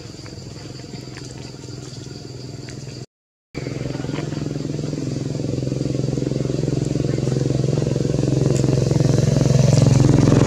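An engine running with a steady low hum that grows louder through the second half. The sound drops out completely for a moment about three seconds in.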